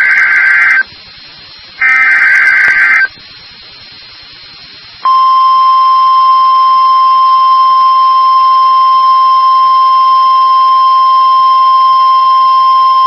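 Emergency Alert System SAME header: two one-second bursts of buzzing digital data screech with short pauses between them. About five seconds in, a loud, steady single-pitched alert tone near 1 kHz begins and holds: the 1050 Hz weather-warning attention tone that precedes a flash flood warning.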